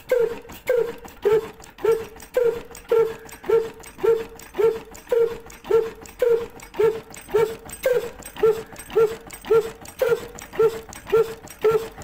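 Miniature model stationary engine running its flywheel and belt drive, making a short pitched pulse about twice a second in an even, steady rhythm.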